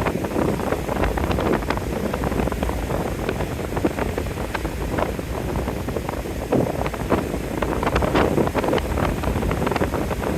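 Gale-force wind blasting the microphone: a constant low rumble broken by frequent sharp crackles as gusts hit it, with wind-driven lake surf underneath.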